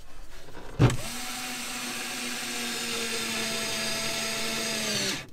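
Small cordless electric screwdriver driving a screw, running steadily for about four seconds with its pitch sagging slightly near the end, then stopping suddenly. A sharp knock comes just before it starts.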